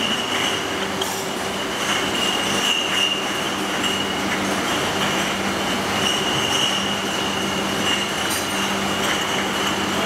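Automatic glass bottle washing machine and its bottle conveyor running steadily: a constant mechanical noise with a steady high whine and a low hum.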